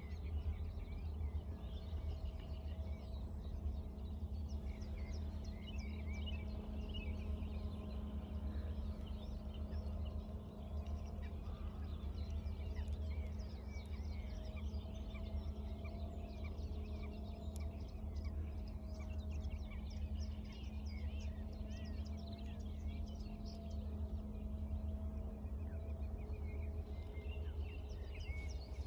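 Outdoor ambience: birds chirping and calling on and off throughout, over a steady low rumble and a faint steady hum.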